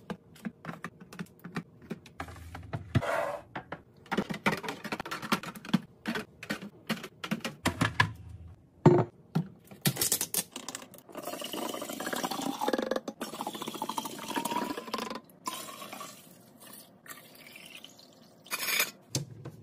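Fridge restocking sounds: a run of clicks, taps and light knocks from items being handled and set down, with liquid pouring for a few seconds around the middle, its pitch rising as the container fills.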